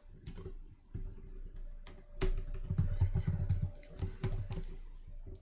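Typing on a computer keyboard: a run of irregular keystroke clicks, busiest in the middle.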